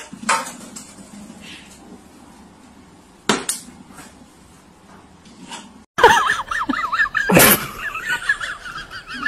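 Sharp knocks of a plastic water bottle on a wooden shelf as a cat knocks it down, twice over; then a loud clank of eggs against a stainless steel bowl as a serval paws at them, with wavering high-pitched vocal sounds over it.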